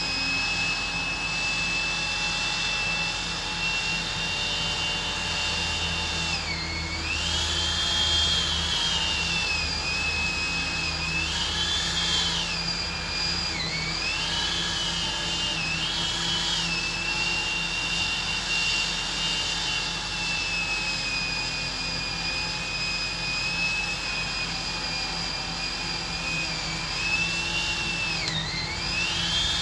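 Chainsaw mounted on a pole running steadily at high speed, its pitch dipping and recovering several times as it bogs into branches.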